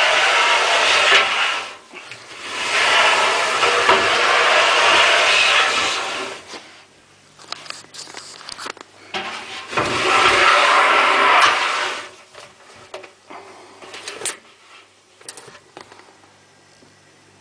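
Tumble dryer drum being moved by hand, scraping in three long stretches of rough noise with light knocks and clicks between them; the drum has slipped off its broken rear bearing shaft.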